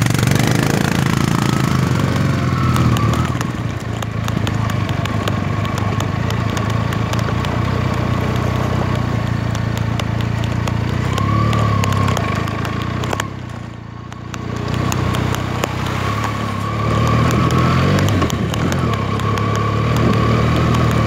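Motorcycle engine running steadily while riding a rough gravel track, with many sharp clicks and rattles from stones and the bike throughout. The engine eases off briefly about two-thirds of the way through, then picks up again.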